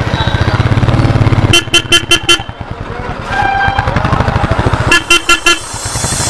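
An engine idling close by with a rapid, even thump, loudest in the first second and a half. A vehicle horn sounds in quick runs of short beeps: five about a second and a half in, and four more about five seconds in.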